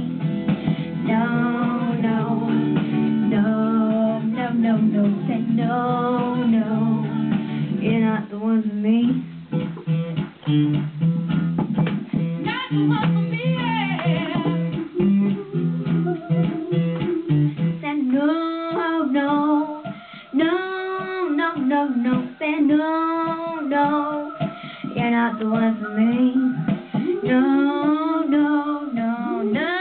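A young girl singing along with acoustic guitar music. The low steady accompaniment drops away about eighteen seconds in, leaving mostly the singing voice with sliding, held notes.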